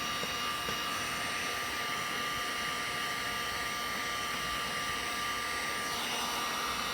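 Electric heat gun running steadily: a blowing fan rush with a thin steady whine over it.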